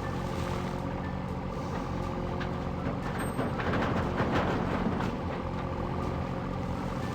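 A vehicle engine sound running steadily, with a louder rush of noise about halfway through and faint short beeps about once a second.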